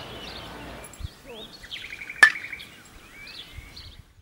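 Small birds chirping in short, repeated calls, with one sharp crack about two seconds in that is the loudest sound. Everything cuts off abruptly at the very end.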